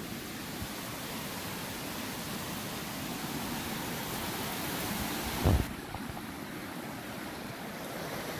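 Fast river rapids rushing steadily. A brief low thump on the microphone comes a little past halfway.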